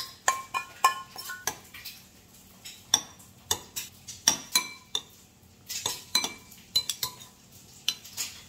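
Metal utensils clinking and scraping against bowls in irregular taps: first a spoon knocking out the last of a sauce from a stainless steel bowl, with clinks that ring; then a fork and spoon scraping a ceramic bowl as rice is stirred together with the sauce.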